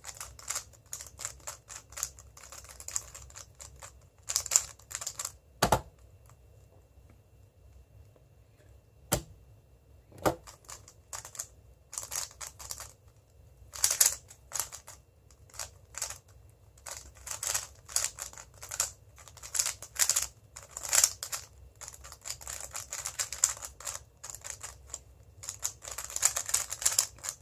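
Moyu WeiLong GTS2M magnetic 3x3 speedcube being turned fast in a timed solve: rapid clicking of plastic layers in quick runs. The clicks are scattered and sparse for the first third, then come thick and fast for the rest.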